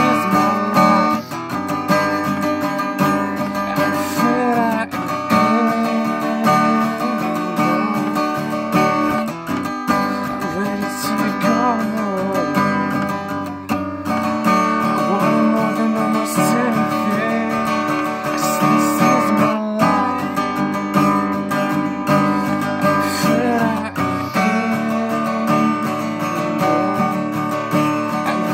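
Taylor acoustic guitar strummed with a pick, capo on the neck, in a steady rhythm.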